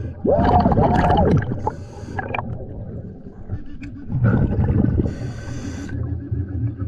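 A diver's muffled underwater cry through a snorkel, the pitch arching up and down, followed by hissy snorkel breaths and water gurgling.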